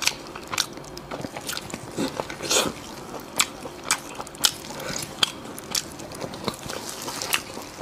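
Close-miked eating sounds: biting into and chewing a large piece of sticky sauce-glazed meat, with a string of sharp wet mouth clicks and smacks.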